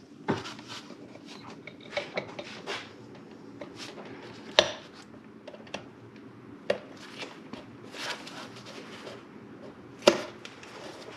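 Scattered light clicks, taps and knocks as rubber hoses, hose clamps and a pair of hose clamp pliers are handled under a car's hood, with two sharper knocks, one midway and one near the end, over a low steady hum.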